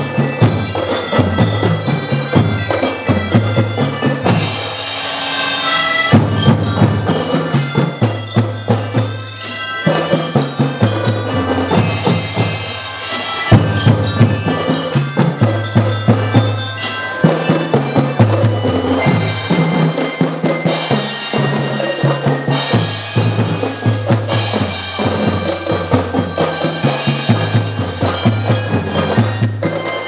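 School marching band playing: bell lyres (marching glockenspiels) ring out the melody over a steady beat of marching drums. The drums thin out briefly about four seconds in, leaving mostly the bells, then come back in full.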